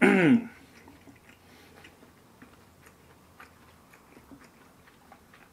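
A man's short hum with falling pitch, then quiet chewing with faint scattered clicks of wooden chopsticks against the plate.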